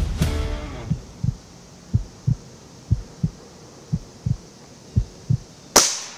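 Slow heartbeat sound effect, a low double thump about once a second, building tension. Near the end a single sharp, loud hit cuts in and quickly fades.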